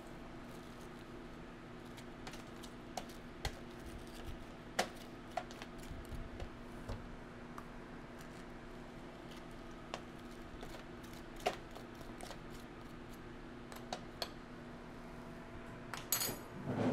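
A spoon scraping the seeds out of halved acorn squash, with scattered light clicks and taps, over a faint steady hum.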